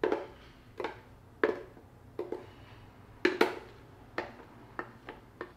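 Thick blended acai purée being poured from a plastic blender jar into a bowl, heard as about ten short knocks at uneven spacing, each with a brief ring.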